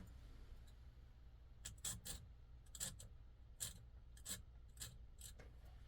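Faint, brief scrapes of a ceramic hone against a folding knife's steel blade, about ten short strokes, working off a small burr on the blade.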